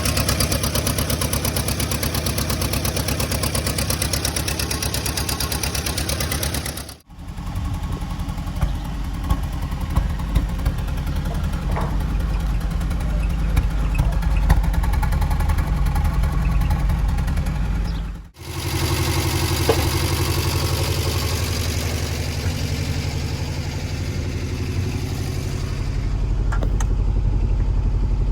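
A motor vehicle's engine running steadily. It is heard in three separate clips, with sudden cuts about 7 and 18 seconds in.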